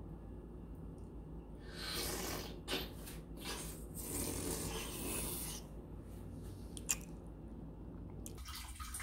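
A person slurping runny red Jell-O off his fingers: two long breathy slurps through pursed lips, with a couple of small wet clicks from the mouth.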